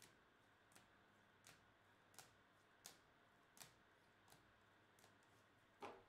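Faint clicks of trading cards in rigid plastic holders being flipped through one at a time, about one every three-quarters of a second. A louder knock comes near the end as the stack is squared up.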